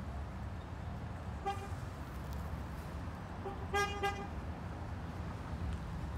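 A car horn sounds in a car park: a short toot about a second and a half in, then a louder, longer honk just before four seconds in, over a steady low rumble.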